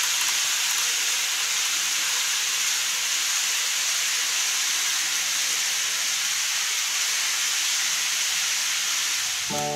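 Steady, even hiss with no rhythm or pitch, at the same level throughout: background noise of the recording while an N-gauge model train runs off along the track. Music comes in right at the end.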